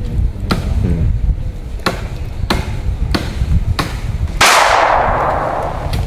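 A blade chopping into wood by hand, about one sharp strike every two-thirds of a second, over a low wind rumble on the microphone. Near the end a sudden loud rushing sound cuts in and fades over a second or so.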